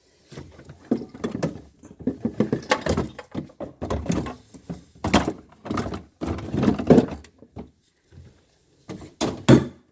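Irregular knocks, thunks and rattles of refrigerator parts being handled and fitted back into place during reassembly of the freezer, with a short pause shortly before the end.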